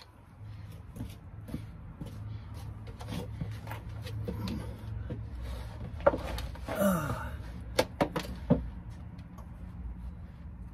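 Shuffling and scraping of a man getting under a jacked-up van, with knocks and a few sharp clicks against the underside and front suspension, loudest in the second half.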